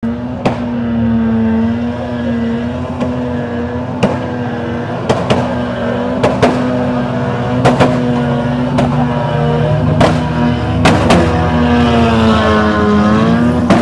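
Engines of a pack of banger racing cars running and revving round an oval track, their pitch wavering and dipping near the end. About a dozen sharp bangs cut through as cars hit each other.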